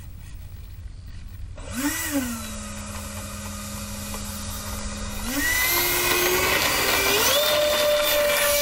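Twin 70 mm electric ducted fans of an RC stunt jet spooling up. A whine starts about a second and a half in, briefly rises and settles. It then steps up twice in pitch and loudness as the throttle is opened for the takeoff roll.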